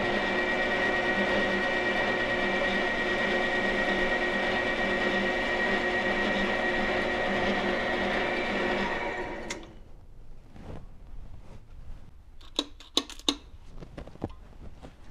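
Metal lathe running steadily with a Jaguar V-12 cylinder liner spinning in its chuck, its motor and gearing giving a steady whine. About nine and a half seconds in, the lathe sound cuts off, followed by a few sharp metallic clicks and knocks as a liner is handled at a bench vise.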